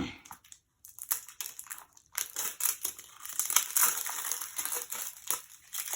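Plastic packaging of a sealed false-eyelash box being crinkled and crushed as it is opened. There are scattered crackles at first, then dense continuous crinkling from about two seconds in.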